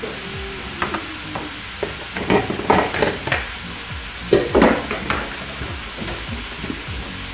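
Cabbage and bean sprouts cooking in a wok: a steady sizzle, with louder bursts of crackle about two seconds and four and a half seconds in.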